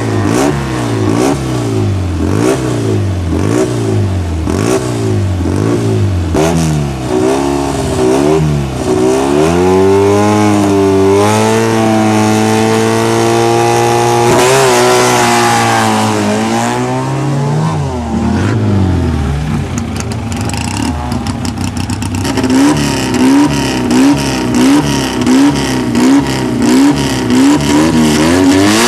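Fiat 500 engine revved in repeated blips, then held at steady high revs for several seconds before falling back. Near the end comes a quick, even run of short throttle blips.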